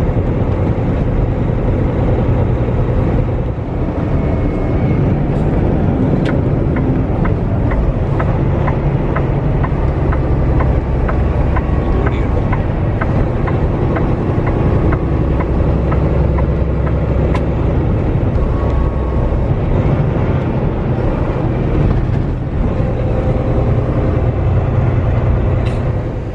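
Semi truck running down the road, heard inside the cab: a steady low engine drone under loud road noise. In the middle there is a run of light, evenly spaced clicks, two or three a second.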